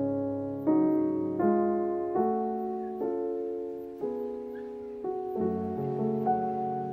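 Background music: a slow piano melody, a new note struck about every three-quarters of a second and left to ring and fade.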